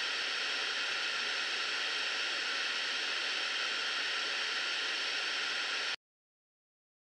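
Steady, even hiss like white noise or static, cutting off abruptly to dead silence about six seconds in.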